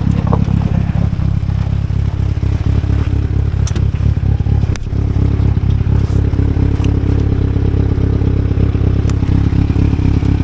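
Go-kart's Yamaha R6 inline-four motorcycle engine running steadily at idle, with a few light clicks and rattles.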